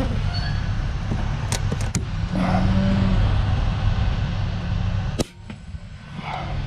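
Wind rumbling on the microphone with a few light clicks, then about five seconds in a single sharp crack from the FX Crown Continuum PCP air rifle firing.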